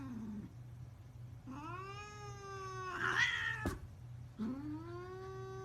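A cat giving two long, drawn-out meows, each rising at the start and then held, with a sharp click between them.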